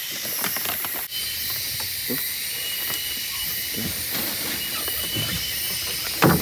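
Steady high-pitched hiss and whine of a rainforest insect chorus, with one tone near the top of the range coming and going. Underneath are a few soft knocks and splashes from handling a fish and net at the water's edge, and a sharper sound near the end.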